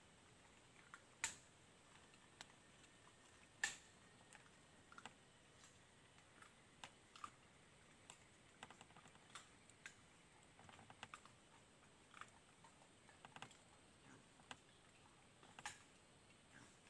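Near quiet, broken by faint, irregular clicks and crackles of dry leaf litter and twigs under a group of foraging wild pigs, with a few sharper snaps standing out about a second in, three and a half seconds in, and near the end.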